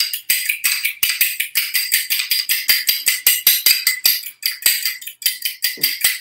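A metal fork beating an egg in a small glass bowl: quick, steady clinks of the fork against the glass, about seven a second.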